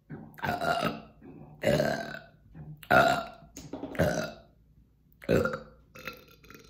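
A woman burping loudly and deliberately, a string of about six separate burps each under a second long, brought up by a chugged carbonated soda.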